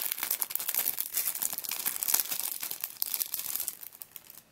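Clear resealable cellophane bag crinkling as sheets of puzzle stickers are handled and pulled out of it. The crackling dies away about four seconds in.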